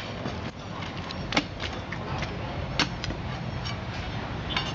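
Sharp clinking knocks from manual work on old concrete and its rubble, a few strikes spaced roughly a second and a half apart over a steady low background.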